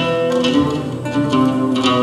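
Turkish folk ensemble playing a Kayseri türkü, led by plucked string instruments with a steady rhythm of plucked notes under held melody notes.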